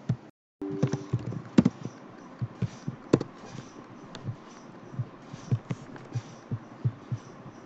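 Irregular soft thumps and clicks of a computer mouse and keyboard on a desk, about one or two a second, a few of them sharper clicks. A brief low steady tone sounds about a second in.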